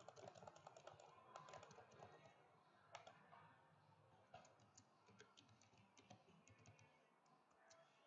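Faint typing on a computer keyboard: quick runs of key clicks, busiest in the first two seconds and again about four to six seconds in, with single keystrokes in between.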